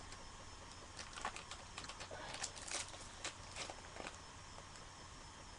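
Faint handling of a Pokémon booster pack and its cards: scattered light clicks and short crinkly rustles of the foil wrapper and card stock.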